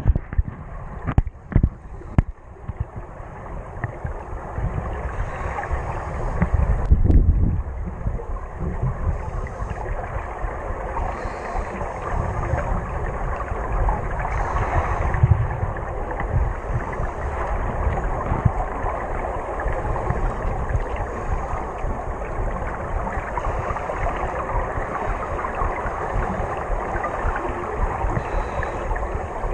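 Underwater water noise picked up through a waterproof camera housing: a steady, muffled rush of water moving past. There are a few sharp knocks in the first two seconds and a louder surge about seven seconds in.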